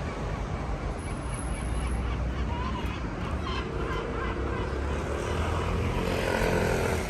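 Town street traffic: a steady low rumble of engines, with one vehicle's engine note sliding in pitch as it goes by over the last few seconds.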